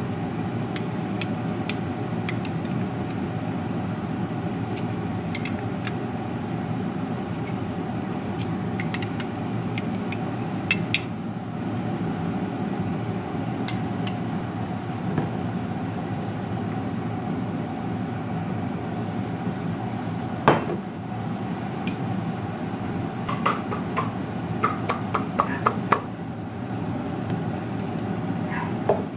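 Kitchenware clicking and knocking as a blender cup and bowl are handled: scattered light clicks, one sharper knock about two-thirds through, then a quick run of light clicks. A steady low hum runs underneath throughout.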